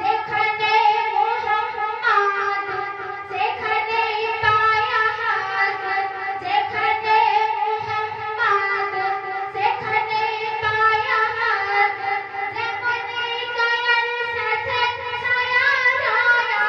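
A young woman's voice singing a Bengali Islamic devotional song (gojol) with instrumental accompaniment.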